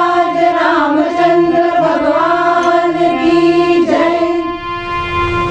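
A group of women singing a devotional bhajan in unison over a held harmonium drone. The voices die away about four and a half seconds in, leaving the harmonium note sounding.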